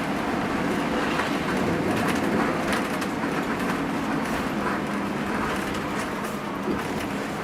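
Hino RN285 bus's diesel engine running under way: a steady drone mixed with road noise, with light rattles on top.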